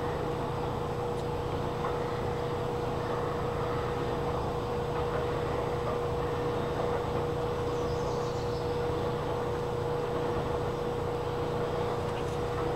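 Steady machine hum: one constant mid-pitched tone over an even rushing noise and a low drone, unchanging throughout.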